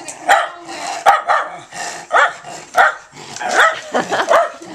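Miniature schnauzer barking repeatedly, short sharp barks about two a second.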